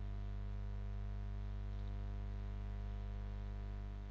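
Steady electrical mains hum with faint hiss from the recording chain, with no other sound; it drops slightly in level near the end.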